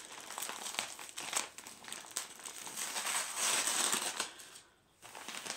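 Wrapping paper crinkling and rustling as hands work at a wrapped present, with a brief pause near the end.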